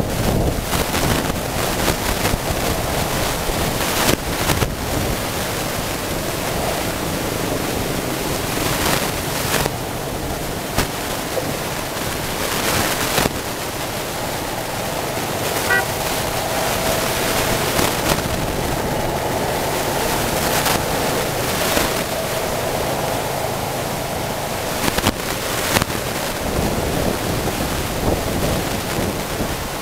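Ride noise from an open motorbike-drawn tuk-tuk trailer in city traffic: a steady rumble of engines and wind with frequent sharp knocks and rattles from the trailer, and horns tooting in the traffic.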